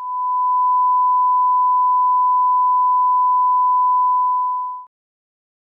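Steady 1 kHz line-up tone accompanying a broadcast programme slate: one pure, unchanging beep used to set audio levels, held for nearly five seconds and then cut off abruptly.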